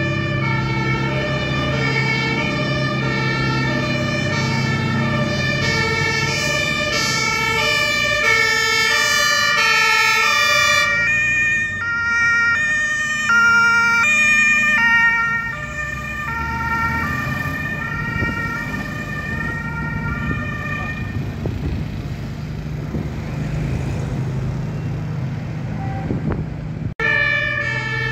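Two-tone fire engine sirens (German Martinshorn), each stepping back and forth between two pitches, with more than one sounding at once out of step. They are loudest around the middle, where one siren at a different pitch comes close, and fainter in the last third over a steady low engine drone. Near the end the sound cuts off for an instant and the sirens start again.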